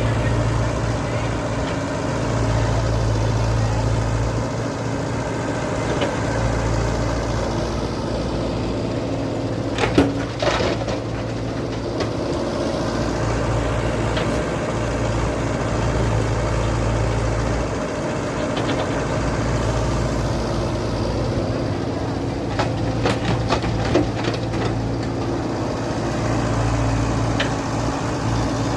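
Engine sound of radio-controlled model construction trucks running steadily, a low drone that swells and eases every few seconds. It is broken by a sharp knock about a third of the way in and a cluster of clicks and knocks in the last third.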